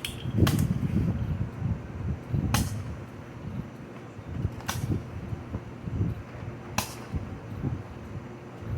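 Fireworks going off: four sharp cracks about two seconds apart, with low thuds and rumbling between them.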